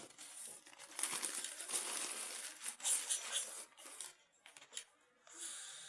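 Crinkly rustling with small clicks and clinks as things are handled, in uneven bursts over the first four seconds, then quieter.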